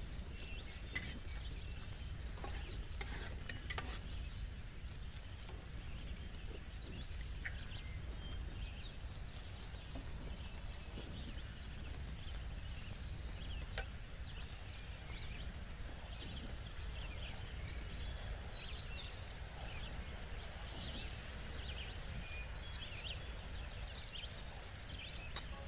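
Small birds chirping in short, repeated phrases every few seconds over a low steady rumble, with a few light knocks of metal cookware as the pot is stirred and the kettle is handled.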